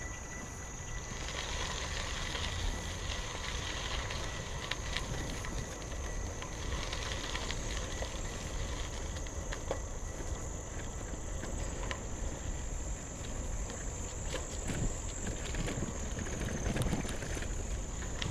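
Bicycle tyres rolling over a gravel trail: a steady low rumble with scattered small crunches and ticks of stones, under a steady high hiss.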